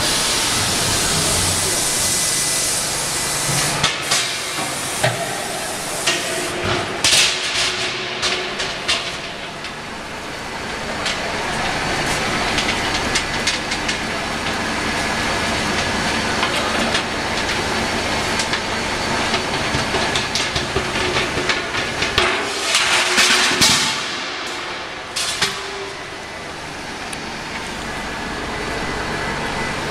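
Circumferential seam welding machine for LPG gas cylinders at work: a steady hiss with scattered crackles and clicks, in louder crackling spells about seven and about twenty-three seconds in.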